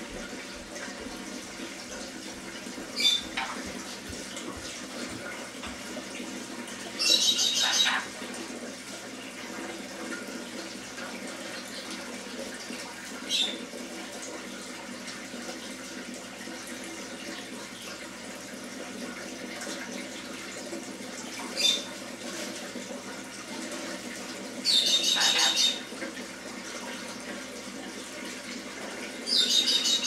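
Sun conure screeching in sharp, loud calls, three brief ones and three longer ones of about a second each, over the steady sound of water running as an aquarium's water is changed; the conure is known to scream during water changes.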